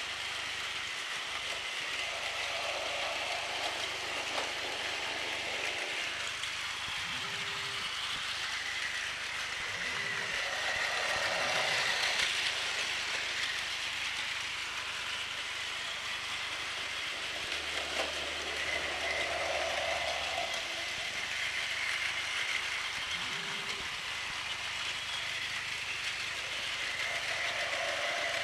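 Plarail battery-powered toy trains running on plastic track: a steady whirring and rattling of their small motors, gears and wheels, swelling every several seconds.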